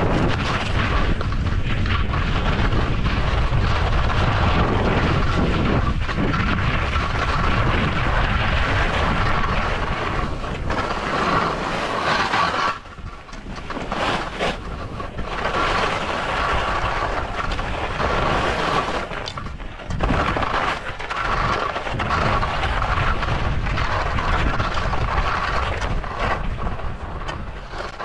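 Skis sliding and scraping over tracked-up snow, with wind rumble on the microphone. The noise stays loud and steady, drops away briefly twice about halfway through, and fades near the end.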